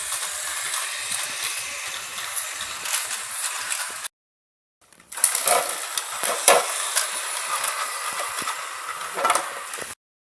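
Battery-powered toy train running along its track: a steady mechanical whirr and rattle of the small motor and gears, with scattered clicks from the wheels. The sound cuts out for a moment about four seconds in, then resumes.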